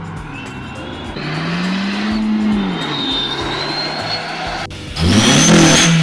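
Car engine revving through an exhaust fitted with a turbo whistle, which adds a thin high whistle that climbs with each rev. The engine note rises and falls once about two seconds in, then a sharper, louder rev comes about five seconds in, with the whistle pitched higher.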